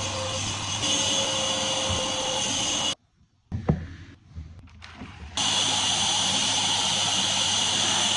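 An old household vacuum cleaner running steadily with a high-pitched whine. It cuts off abruptly about three seconds in, followed by a single thump and a few small knocks, and starts running again about two seconds later.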